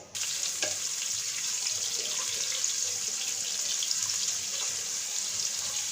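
Thick-sliced onions sizzling in hot soybean oil with whole spices, a steady hiss with small crackles that starts suddenly as they go into the pan.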